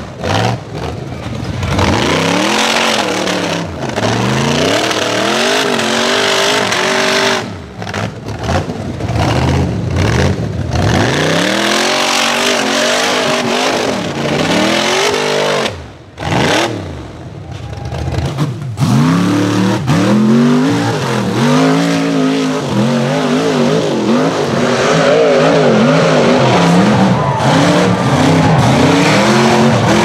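Rock bouncer buggy engines revving hard in repeated up-and-down bursts as the buggies climb, tip and roll on a steep rocky hill. The sound drops out briefly a couple of times.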